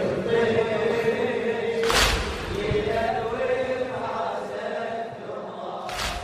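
Men chanting a slow latmiya lament in chorus, holding long bending notes. Two loud sharp group strikes of chest-beating land about two seconds in and near the end, and the chant fades gradually.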